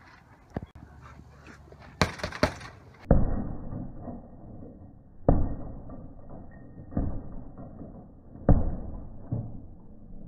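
Gloved punches landing on an Everlast heavy punching bag: a couple of quick hits about two seconds in, then single heavy thuds every second or two.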